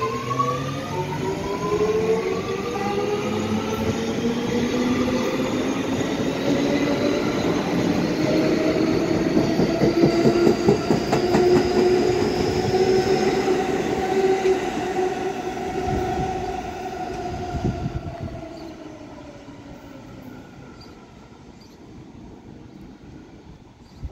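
R211T subway train accelerating away from a station: the traction motors whine in several tones that climb steadily in pitch, over wheel and rail clatter. It is loudest about ten seconds in, then fades away as the train leaves.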